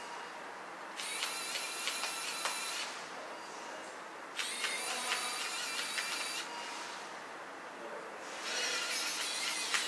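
Allocacoc compact cordless electric screwdriver running in three short bursts of about two seconds each, turning screws in a small plastic device's back panel. Each burst is a high motor-and-gear whine with a few sharp ticks.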